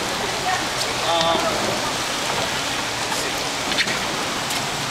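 A steady, rain-like hiss of water, with a few faint sharp ticks and a short call from a voice about a second in.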